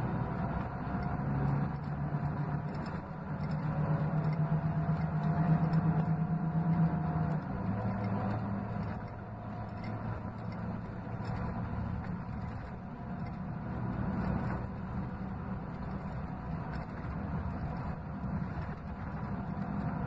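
Scania K380 coach's rear-mounted DC12 inline-six diesel (380 hp), heard from inside the bus while it is under way. The engine note swells and climbs, then drops away sharply to a lower pitch about seven and a half seconds in, and runs on steadily after that.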